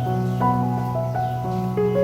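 Soft background music: gentle piano or keyboard notes in a slow, calm melody.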